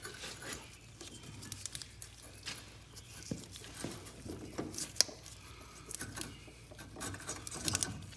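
Rusty exhaust pipe joint on an Arctic Cat 300 ATV being twisted and worked apart by hand: irregular metal scrapes, creaks and clicks, with one sharp click about five seconds in and a cluster of rattles near the end.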